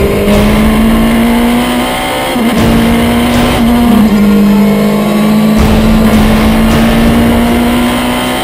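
Race car engine under power, its pitch climbing steadily, with two abrupt shifts in pitch a couple of seconds apart, like gear changes.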